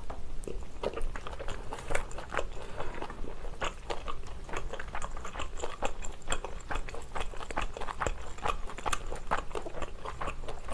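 Close-up chewing of spicy stir-fried pork intestine (sundae gopchang bokkeum) with glass noodles: a steady run of short mouth clicks and smacks, several a second.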